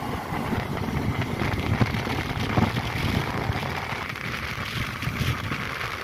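Wind buffeting the microphone over the road and tyre noise of a moving vehicle, a steady rushing rumble that swells and dips.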